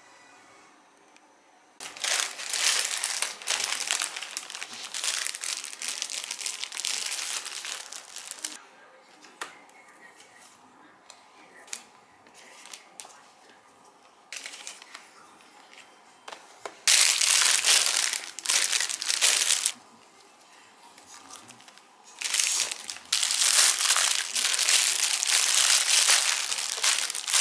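Plastic food packaging crinkling and rustling as groceries are lifted out and set down on a table, in three long bouts with quieter handling noises between them.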